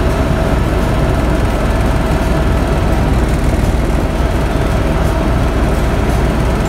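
Helicopter cabin noise in flight: the engine and rotor make a loud, steady drone, heaviest in the low end, with a faint steady tone above it.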